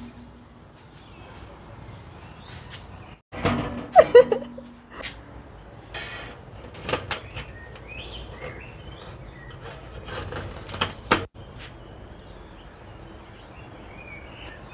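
Metal spatula knocking and scraping against the steel wall of a gas tandoor as baked flatbreads are pried off. There are scattered clinks and knocks, the loudest cluster about four seconds in and more near the middle and about two thirds through, over a steady background hiss.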